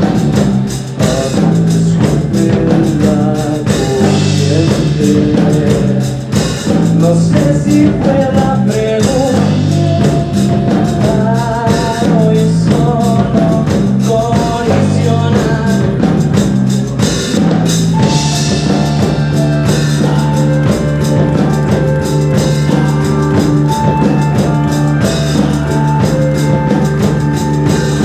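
Rock band playing live: drum kit, bass and guitar with a singing voice. Its bass line moves to long held notes about eighteen seconds in.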